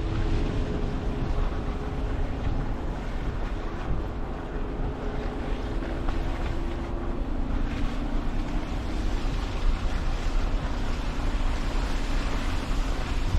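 Wind buffeting the microphone in a steady rumbling hiss, with the low hum of a vehicle engine that shifts slightly in pitch about halfway through.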